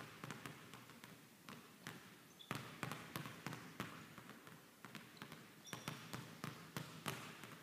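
Two basketballs being dribbled fast and hard on a hardwood gym floor, their bounces overlapping in an uneven patter of several per second. A few short high squeaks come in now and then.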